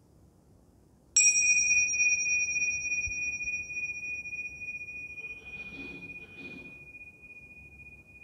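A pair of tingsha cymbals struck together once about a second in, then ringing on in a long, high, bell-like tone that slowly fades. The chime marks the start of a meditation.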